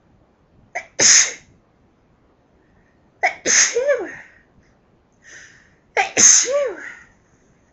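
Three loud human sneezes, about two and a half seconds apart, in a dust-allergy sneezing fit. Each starts with a quick catch of breath and bursts into an explosive 'achoo' whose voice falls away at the end.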